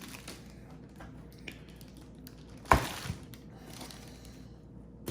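Cardboard box and packaging being handled: scattered light taps and rustles, with one sharp knock a little over halfway through and a smaller knock just after.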